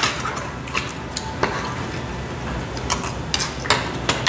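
Metal spoon and chopsticks clinking against bowls while eating, a scattering of light clicks every half second or so over a steady background.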